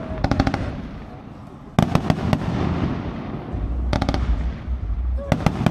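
Fireworks display: four quick volleys of sharp bangs and crackles about one and a half seconds apart, with a rumble between them.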